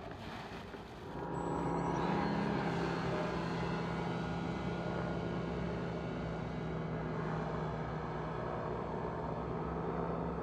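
The small motor and propeller of a radio-controlled paramotor model, running at a steady pitch that comes in and rises about a second in.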